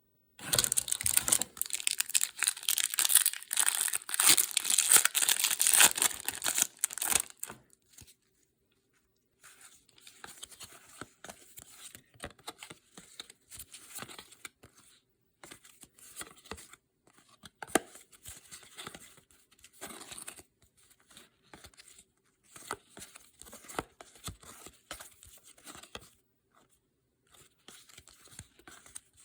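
A 1992-93 Fleer Ultra Series II NBA trading card pack being torn open, its wrapper crinkling loudly for about seven seconds. After a short pause come quieter, scattered rustles and small clicks as the cards are handled.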